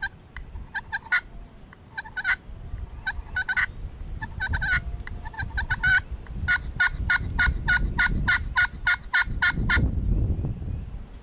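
Turkey yelping. Short groups of three to five sharp yelps come first, then a long even run of about fourteen yelps at roughly four a second that stops near the end. Wind rumbles on the microphone underneath.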